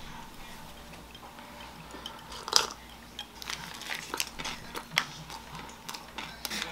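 Parchment-paper sandwich wrapper crinkling and rustling as a wrapped sandwich half is picked up and handled. There is a short clatter about two and a half seconds in, then frequent small crackles.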